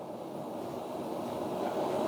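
Steady rushing roar of a blacksmith's forge fire under its air blast, slowly growing louder.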